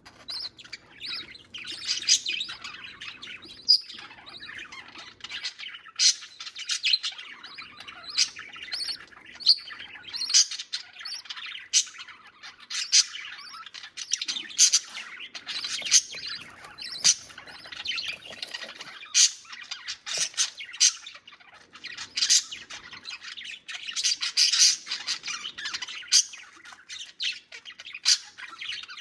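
Budgies, a mother and her chicks, chirping and squawking in a rapid, unbroken stream of short, sharp calls: typical of chicks begging while being fed.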